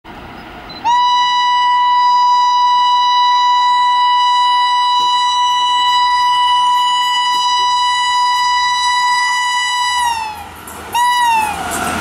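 WAP-5 electric locomotive's horn sounding one long single-note blast for about nine seconds as it approaches at speed. Its pitch drops as the locomotive draws level, then a second short blast follows, also falling in pitch, and gives way to the rush of the train passing close by.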